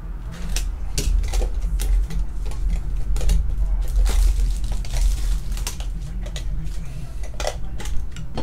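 Plastic shrink-wrap crinkling as it is torn and peeled off a small metal card tin, with repeated sharp clicks and taps of the metal tin and its lid being handled and pried open.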